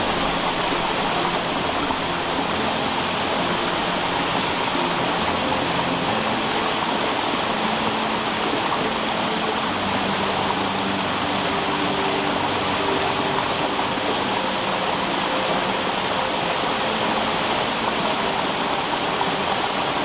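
Waterfall cascading down rock steps and water running between boulders below: a steady rush of falling water.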